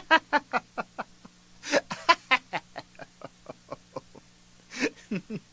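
A person laughing in a rapid string of short, clipped pulses, about four or five a second, with a few louder bursts about two seconds in and near the end.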